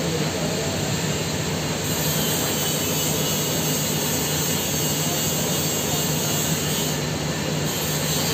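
TIG (argon) welding arc burning continuously on a small steel pipe socket joint: a steady hiss over a constant low hum.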